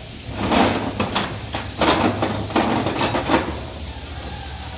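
Workshop clanking: a quick, irregular run of about seven metal knocks and clatters over some three seconds, from tools and parts being handled during engine removal.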